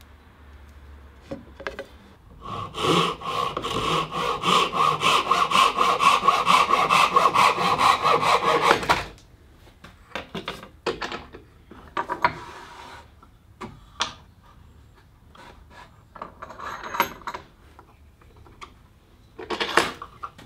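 Japanese dozuki pull saw cutting through a 20 mm beech dowel in quick, even strokes, several a second, which stop abruptly when the cut goes through. Then come scattered knocks and rubs as the wooden dowel is handled, with a louder clatter near the end.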